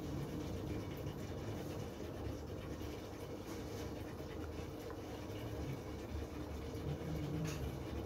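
Steady hum and bubbling of an aquarium air pump driving a sponge filter, with a few faint clicks.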